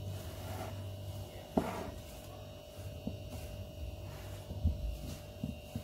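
Hands rubbing and crumbling a semolina harcha dough in a glass bowl: soft rustling with a sharper knock about a second and a half in and a few lighter knocks later, over a steady low electrical hum.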